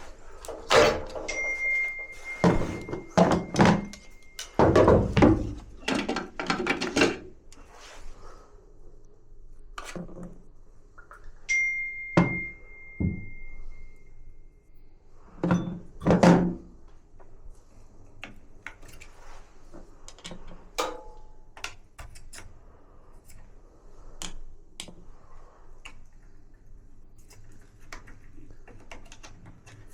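Knocks and clatter of metal parts and tools being handled and set down, dense at first and sparser later. Twice a struck metal piece rings with a clear tone that fades over about three seconds.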